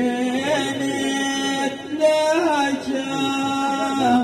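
Men's voices singing a drawn-out ahwach chant line unaccompanied: long steady held notes, with a short break and a brief pitch bend about halfway through.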